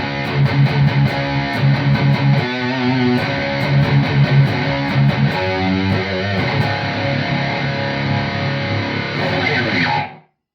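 High-gain distorted electric guitar playing a chugging rhythm riff, pitched down to C sharp by a Digitech Drop pitch-shift pedal and played through an ENGL Fireball amp. The playing stops abruptly near the end.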